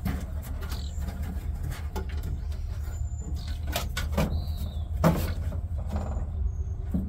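Knocks and scrapes of a wiring harness being handled and pushed along the bare sheet-metal floor pan and sill of a stripped 1972 Ford Ranchero, the sharpest knock about five seconds in. A bird chirps a few times.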